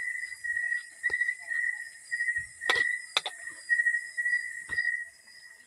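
Crickets chirping in a steady pulsing trill, about three pulses a second, over a fainter high hiss of other night insects. A few sharp knocks of a metal spatula against the wok, the loudest about halfway through.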